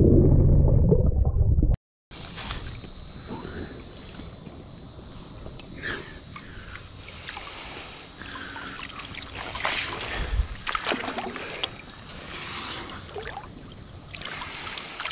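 Music for under two seconds, then after a brief dropout: shallow river water sloshing and trickling around a person's legs and a sifter pole, with small splashes throughout and a steady high hiss.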